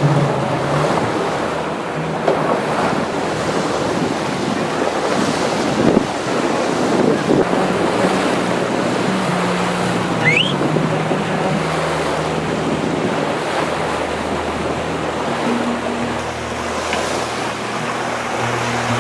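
Water rushing past a moving boat's hull, with wind on the microphone. Faint low tones underneath shift in pitch now and then, and a brief rising chirp sounds about halfway through.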